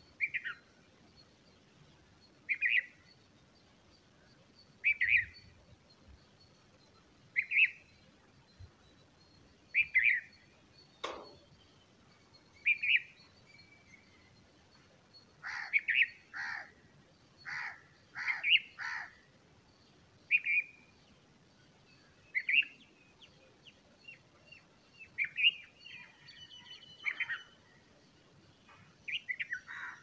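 Bulbul chirping at the nest: single short chirps repeat about every two and a half seconds. A quick run of louder chirps comes about halfway through, and more varied chirping follows near the end.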